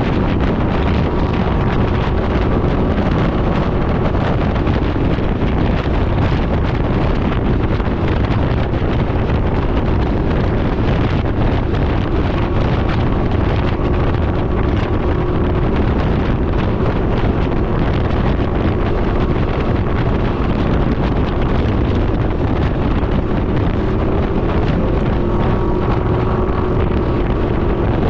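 Steady wind noise buffeting the microphone at riding speed on a Can-Am Ryker 900 three-wheeler, with a faint hum from its engine underneath.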